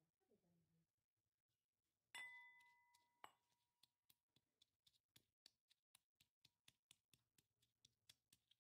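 Pestle pounding dried fish, dried red chillies and salt in a ridged metal mortar bowl, faint. About two seconds in, two strikes ring off the metal. After that come steady light pounding strokes, about three a second.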